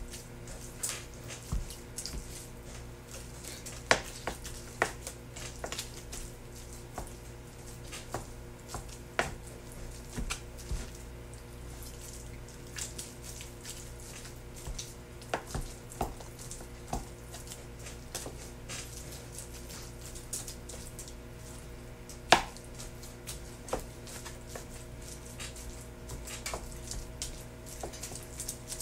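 Knife chopping cooked pork shoulder on a cutting board: irregular knocks of the blade, with one louder knock about 22 seconds in. A steady low hum runs underneath.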